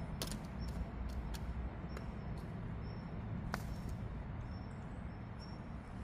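Hands working stony soil: scattered sharp clicks of small stones knocking together, the loudest about three and a half seconds in, over a low steady rumble, with faint short high chirps.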